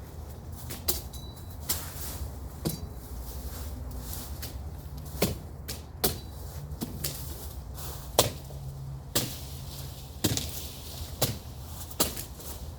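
Machete blows chopping through brush and small tree stems: sharp strikes at irregular intervals, roughly one a second, over a low steady hum.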